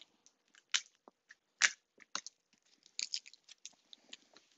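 Scattered short crackles and sharp taps, the loudest about a second and a half in: a wad of blue painter's tape being pressed on the worktable and crumpled to pick up tiny shards of broken mirror glass.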